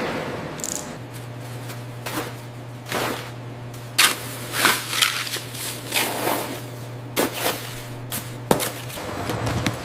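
A series of irregular sharp knocks and clacks over a steady low hum. The hum starts about a second in and stops shortly before the end.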